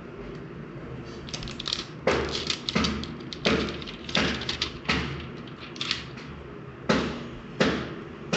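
Handling noises during an unboxing: an irregular run of sharp clicks, crackles and light knocks, starting about a second in, over a steady low hum.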